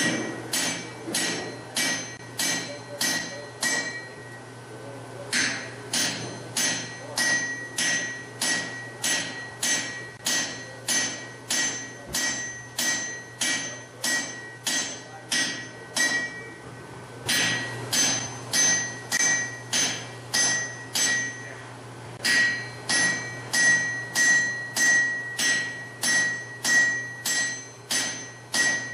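Blacksmith's hand hammer striking red-hot steel on an anvil in a steady rhythm of about two to three blows a second, each blow followed by a high ringing from the anvil. The hammering stops briefly a few times, about four seconds in, about sixteen seconds in, and about twenty-two seconds in.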